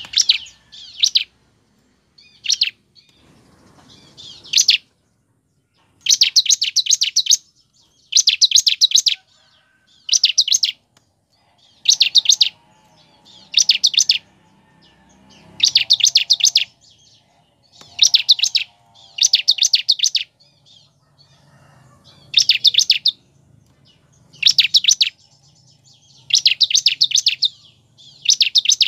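Bar-winged prinia (ciblek) singing: bursts of very fast, high chattering notes, each about a second long, repeated roughly every two seconds.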